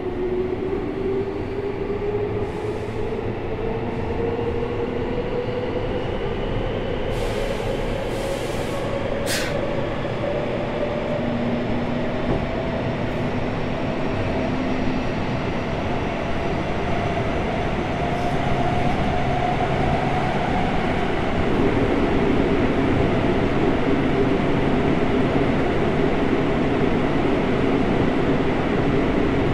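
Inside a Seibu 6000 series aluminium-bodied electric train with an unrenewed Hitachi GTO-VVVF drive: the motor tone rises slowly and steadily as the train picks up speed, over the running noise of wheels on rail. A brief sharp high sound comes about nine seconds in, and the rolling noise grows louder over the last third.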